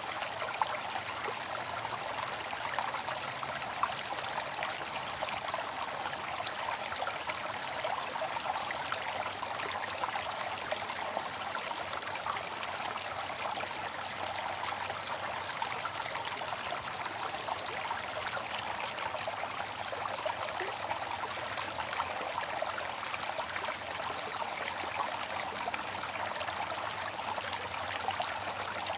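Water fountain splashing and trickling steadily, a continuous patter of falling water with no break.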